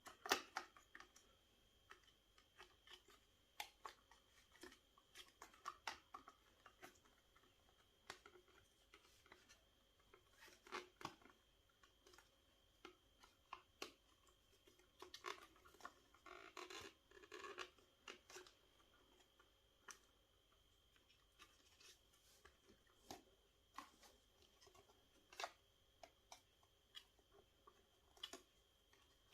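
Scattered small clicks, taps and scrapes of a 2.5-inch SATA SSD in its silicone sleeve being handled and pushed into a laptop's drive bay.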